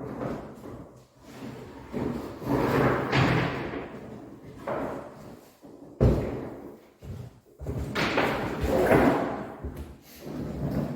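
Irregular knocks and thuds from building work, with noisy rushes between them and one sharp thud about six seconds in.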